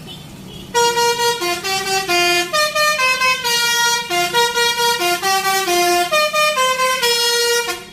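Bus 'telolet' musical air horn playing a quick tune of short stepped notes, starting about a second in and cutting off shortly before the end.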